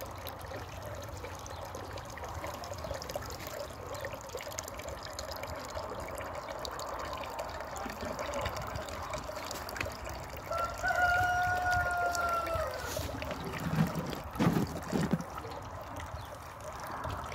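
Hot melted wax and water trickling steadily out of a screw press from a twisted sack of boiled beeswax slum. A chicken calls once, a held note of about two seconds, and a few knocks sound near the end.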